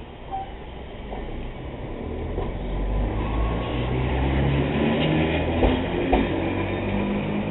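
A two-car electric commuter train pulling away from a station platform and gathering speed. Its rumble and motor hum grow louder and rise in pitch, with two sharp wheel clacks over rail joints about two-thirds of the way in.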